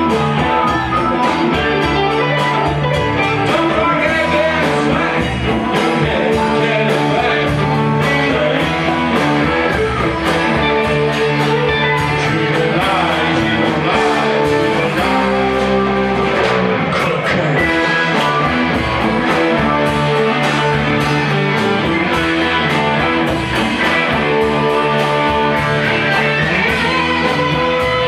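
Live rock band playing: several electric guitars over drums and keyboard.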